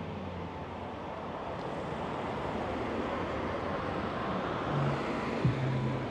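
A car passing on a city street, its tyre and engine noise swelling through the middle and easing off near the end. A short sharp knock comes about five and a half seconds in.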